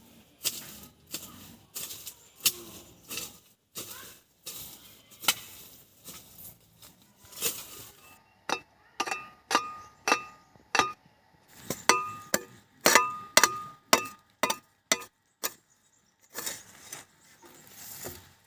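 Irregular metallic clinks and knocks, some ringing briefly, coming thickest and loudest in the middle stretch.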